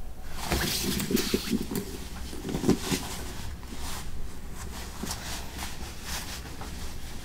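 Rustling and light knocks of shoulder bags and their straps being handled and put on, with a steady low hum beneath. The handling is busiest in the first few seconds and thins out after.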